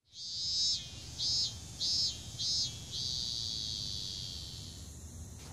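High-pitched chirping ambience, like insects or small birds: one long chirp, then three short chirps about half a second apart, then a long steady chirp that fades out, over a faint low background hum.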